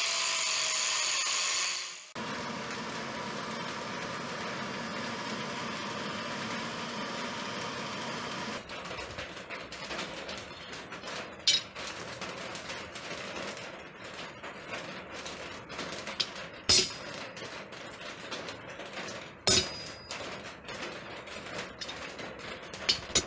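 Angle grinder cutting into leaf-spring steel, stopping about two seconds in. A steady rushing noise follows, then from about ten seconds on a few sharp hammer blows, several seconds apart, on hot steel lying on a railway-track anvil.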